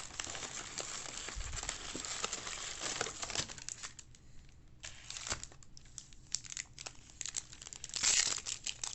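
Plastic wrapper of a baseball card pack crinkling and tearing as it is ripped open and crumpled: dense crinkling for about the first four seconds, then short bursts, the loudest shortly before the end.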